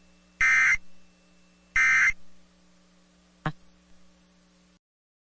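Emergency Alert System end-of-message data bursts: two short, buzzy digital screeches about 1.3 s apart, part of the set of three that signals the alert is over. A single click about three and a half seconds in, and the audio then cuts out.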